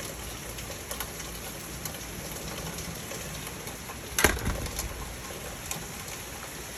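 Steady patter of rain with scattered drips and ticks, and one sharp knock about four seconds in.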